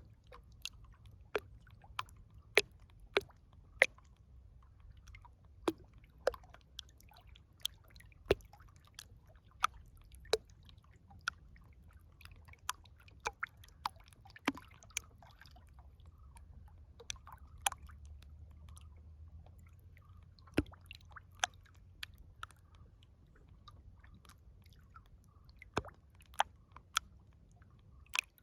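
River water lapping and dripping close by: irregular sharp plinks and small splashes, one or two a second, over a faint low rumble.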